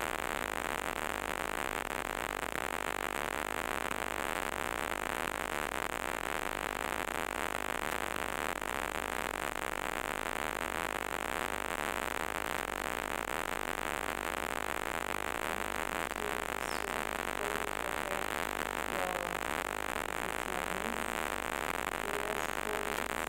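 Steady static hiss in the recording, even and unchanging throughout, with a few faint short tones near the end.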